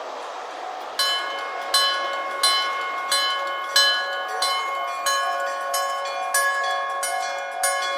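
Japanese electric-gong (denshō-type) level-crossing bell that starts ringing about a second in, its hammer striking the gong about one and a half times a second, each stroke ringing on. It is the crossing's warning that a train is coming.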